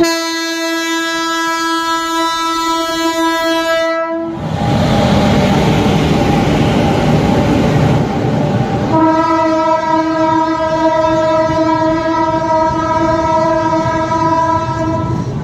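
WAP-7 electric locomotive sounding a long horn blast of about four seconds as it comes in, then the loud rumble of LHB coaches rolling past on the rails. About nine seconds in a second horn blast of about six seconds sounds over the passing train.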